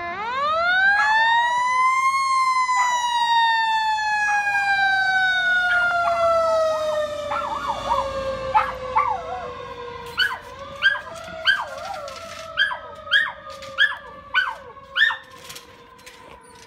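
Fire department siren rising sharply to a high pitch in about two seconds, then gliding slowly down in pitch and fading. A dog barks repeatedly in the second half.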